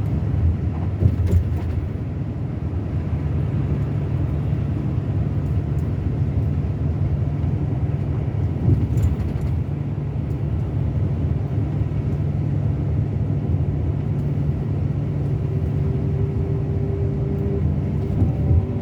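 Scania K360 coach's diesel engine running steadily: a continuous low drone with a steady low hum.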